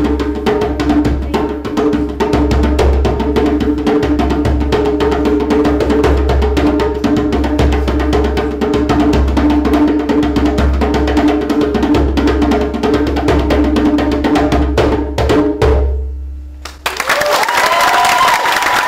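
Djembe played with fast hand strokes over sustained low tones, fading out about sixteen seconds in. Audience applause follows near the end.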